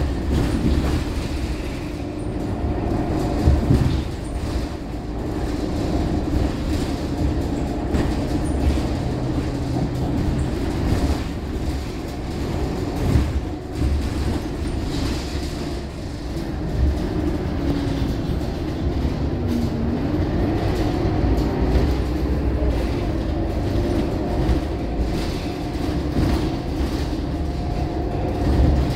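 Inside a moving Scania K230UB single-deck bus: its five-cylinder diesel and drivetrain running with a steady low rumble and a whine that rises and falls with speed. Interior panels click and rattle over the road.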